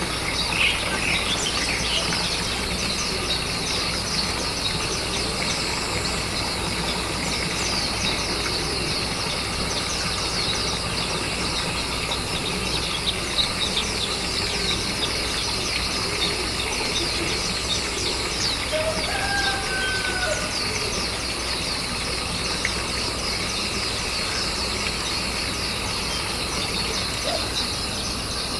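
Birds chirping: a dense, unbroken run of short high chirps, with a few separate lower calls about two-thirds of the way through, over a steady low hum.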